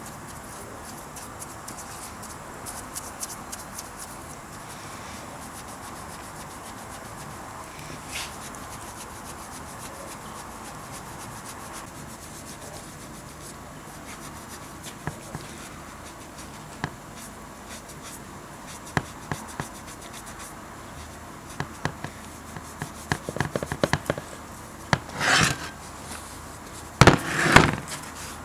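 Workshop handling sounds: scattered light clicks and taps over a faint steady hiss, then two louder short rasping or hissing bursts near the end.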